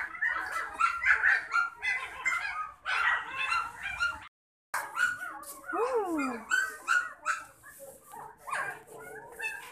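Central Asian shepherd puppies crying in many short high-pitched calls, with a long falling whine about six seconds in.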